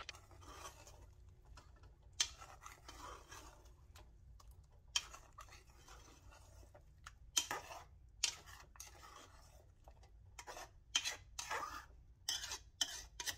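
Steel spoon scraping and clinking against the sides and bottom of a metal pressure cooker as thick masala paste is mixed into mutton pieces. The strokes come at irregular intervals and are faint, with a few louder scrapes in the second half.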